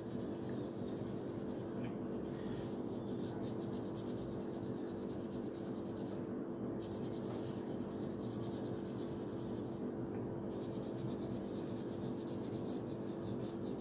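Coloured pencil scratching on paper as a ring on a worksheet is shaded in with steady back-and-forth strokes, over a steady low background hum.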